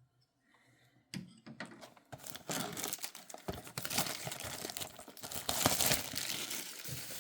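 Packaging of a football-card mega box crinkling and tearing as it is opened, starting about a second in.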